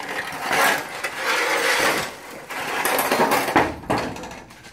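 Handling noise: rubbing and scraping as the phone is moved about, in two long stretches that die away near the end.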